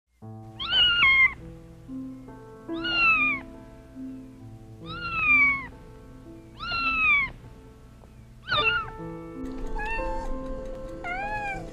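Domestic cat meowing over gentle background music: five long, loud meows about two seconds apart, each falling in pitch at the end, then shorter, quieter meows near the end.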